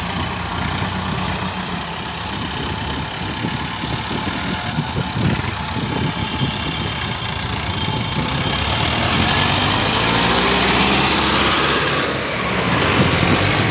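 Diesel tractor engine running steadily under load as a tractor pulling a trolley piled high with sugarcane comes up and passes close by, growing louder in the second half.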